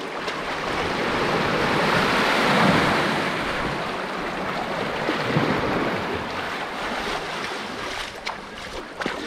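Shallow seawater sloshing and splashing as a woven basket of cut blackfish meat is swished and dunked to wash out the blood, with wind on the microphone.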